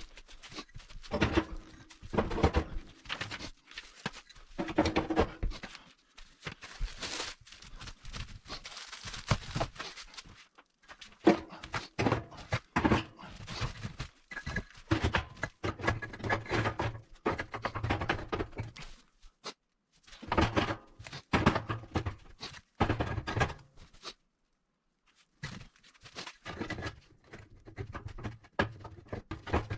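Firebricks being set into a steel wood stove's firebox: irregular knocks, scrapes and clatter of brick against brick and steel, with short pauses between.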